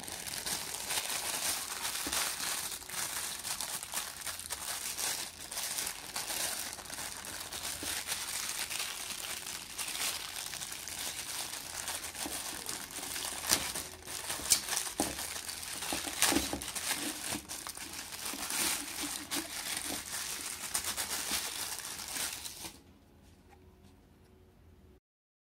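Thin clear plastic packaging bag crinkling and crackling as hands handle it and tear it open, with a few sharper crackles around the middle. The crinkling stops about 23 seconds in.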